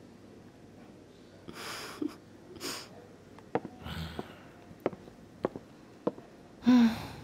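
A person's sharp breaths and sniffs, with a few sharp clicks and a low thump between them. Near the end comes a short, louder voiced gasp.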